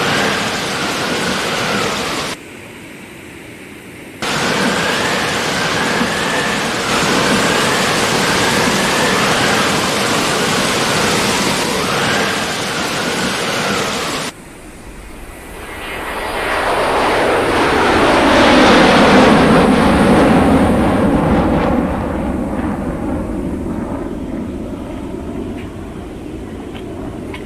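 Steady rush of water from a waterfall, heard in several cut-together shots, so it drops out and comes back abruptly; in the last shot it swells louder for a few seconds and then eases off.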